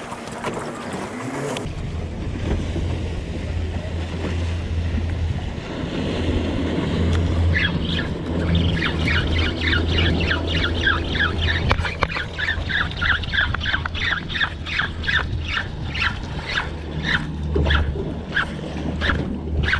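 Spinning reel cranked fast during vertical jigging, giving a short squeak with each turn, about three to four a second, from about a third of the way in. A low steady drone runs underneath.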